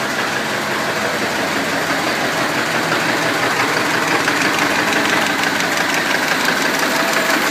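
Ford Model T four-cylinder side-valve engine running steadily on its first run.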